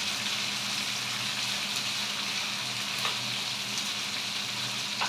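Sliced bell peppers frying in oil in a pan, sizzling steadily.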